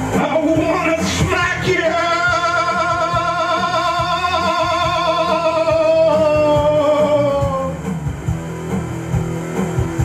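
Rock song on electric bass guitar: fast repeated low bass notes, with a man's voice holding one long sung note with vibrato for about six seconds that slides down and stops near the end.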